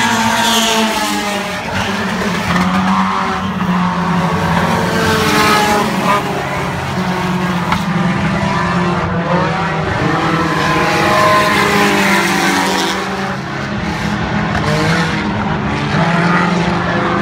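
Several Thunderstock stock car engines racing around a dirt oval, their pitch rising and falling again and again as the cars throttle on down the straights and lift into the turns.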